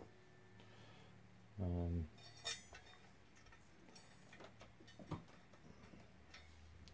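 Light clicks and a sharp ringing clink of machined aluminium chassis panels and hardware being handled and fitted together by hand. A short low hum comes about one and a half seconds in and is the loudest sound.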